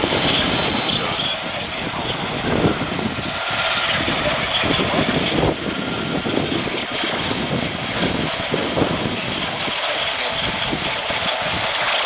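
Steady static and hiss from an AM radio tuned to a weak, distant station on 1130 kHz, thin and muffled as through a radio speaker.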